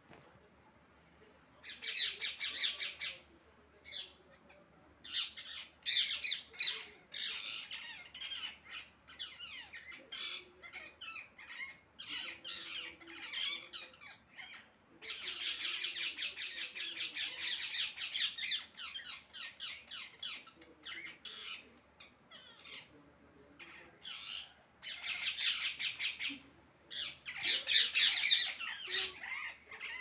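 Parakeets screeching in repeated bouts of rapid, shrill calls with short pauses between them; the loudest bouts come about two seconds in and near the end.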